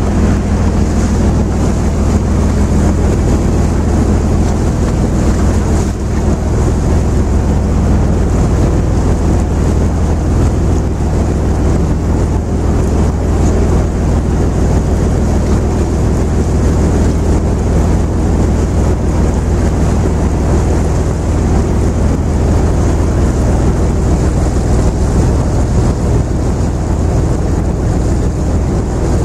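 Steady low drone of a river cruise boat's engine, heard from on board, with wind rushing over the microphone and water noise along the hull.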